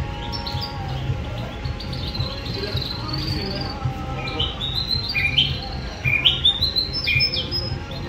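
Caged songbirds singing: a run of high chirps and quick sweeping notes, sparse at first, then louder and faster in the second half, over a low steady rumble.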